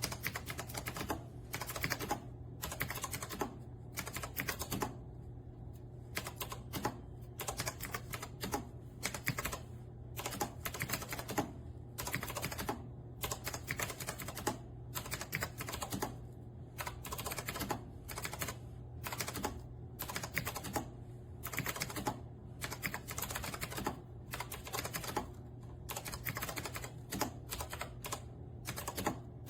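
Typing on a retro typewriter-style mechanical keyboard with round keycaps: fast, irregular runs of key clicks with brief pauses between them, over a steady low hum.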